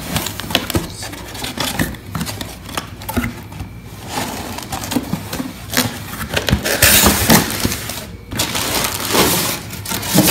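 Cardboard toy box being opened by hand: flaps and an inner cardboard tray scraping, tapping and tearing, with a louder rasp about seven seconds in.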